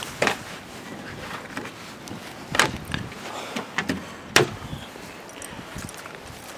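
A handful of sharp knocks and clicks, loudest about two and a half and four and a half seconds in, as the deck bungee cords and fittings of a plastic kayak are handled and knock against the hull.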